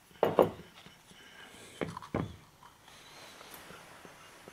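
Metal brake caliper parts knocking on a wooden tabletop as they are handled and set down: two knocks just after the start and two more about two seconds in.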